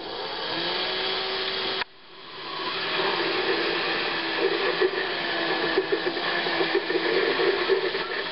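Metal lathe driven straight off solar panels through a DC motor, running and turning a steel mower spindle: a steady motor whir with a steady hum-tone. The sound drops away sharply about two seconds in and builds back up over the next second.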